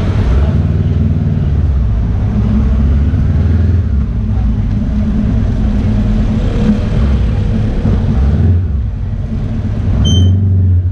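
Honda CB500X parallel-twin engine running at low speed in stop-and-go traffic, its revs rising and falling. A short high beep sounds near the end.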